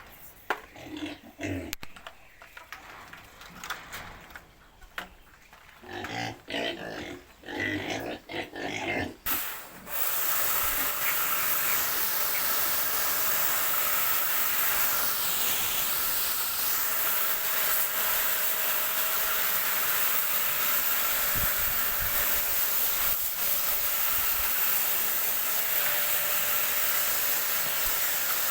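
Pigs grunting and squealing in short broken calls, then about a third of the way in a loud, steady hiss of spraying water starts and runs on without a break, as when the pens are hosed down.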